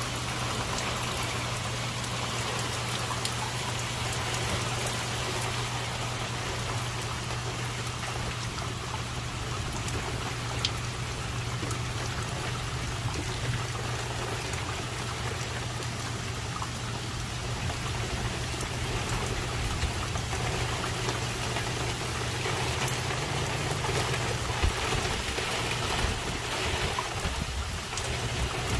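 Steady rain falling, with scattered drops ticking close by, over a steady low hum that fades out about 25 seconds in.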